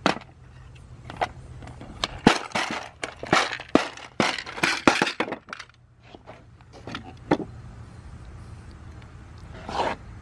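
A plastic tiered fastener organizer being unlatched and its trays swung open, the trays clacking against each other as the screws and nails rattle in their compartments. A quick run of sharp clicks and knocks fills the first seven seconds or so, then one softer clatter near the end.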